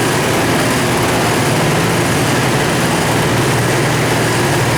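50cc two-stroke engine of a Roketa ATV running steadily.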